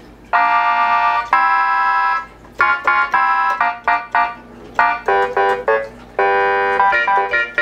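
Casio SK-100 electronic keyboard playing one of its built-in preset voices: two held chords, then a run of short staccato notes and chords, and another held chord near the end.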